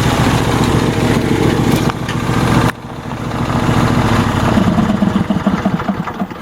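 Troy-Bilt GTX2654 lawn tractor's 26 hp Briggs & Stratton engine running. The sound drops off suddenly about two and a half seconds in, then builds up again and fades near the end.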